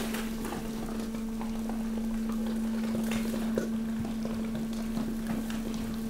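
Hydraulic waste press running: a steady hum from its pump motor, with scattered crackles and snaps of plastic and cardboard as mixed waste is pushed and crushed.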